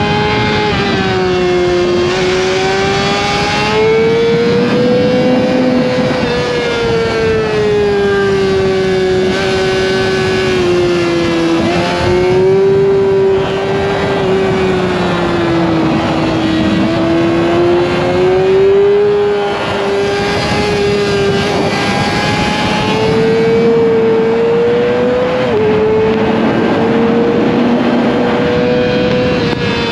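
Motorcycle engine running at high revs on the move, its pitch slowly rising and falling with the throttle, and dipping suddenly once near the end.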